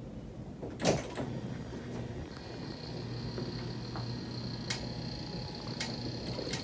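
Electric hospital bed's motor running as the head section is lowered: a steady low hum with a high whine over it. There is a sharp click about a second in and a few lighter clicks near the end.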